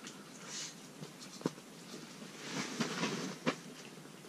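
Handling noise: soft rustling with a few sharp clicks, one about a second and a half in and another near three and a half seconds.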